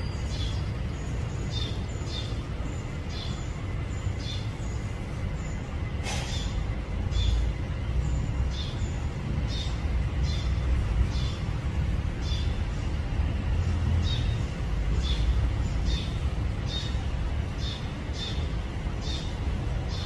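A small bird chirping steadily, short high falling chirps about twice a second, over a steady low rumble.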